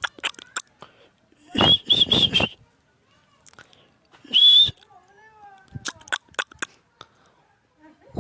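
Pet parrot calling: a loud, harsh call with a pulsed shrill note about a second and a half in, and a shrill screech around four and a half seconds. Sharp clicks come between the calls.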